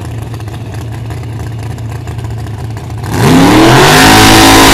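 Supercharged engine of a '23 T altered drag car idling with a low rumble, then about three seconds in revving sharply and holding at high revs for its burnout before the run, very loud.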